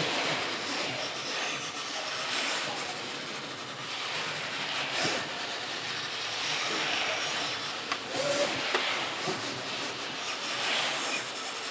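Pattern cutting and marker printing plotter running: a steady machine whirr that rises and falls, with a few light clicks.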